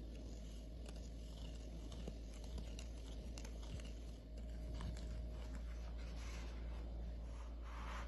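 Wooden craft stick stirring baking soda and water in a small glass bowl, with many light clicks and scrapes of the stick against the glass. Near the end come two soft rustles, over a steady low hum.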